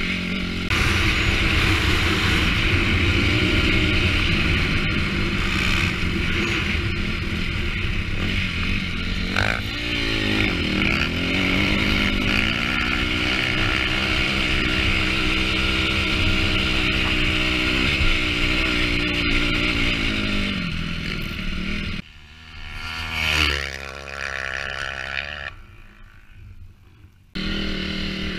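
Honda CRF250R's single-cylinder four-stroke engine running at a steady speed under way, its pitch dipping and climbing again about a third of the way through. Near the end it drops much quieter with one brief rev, then comes back loud.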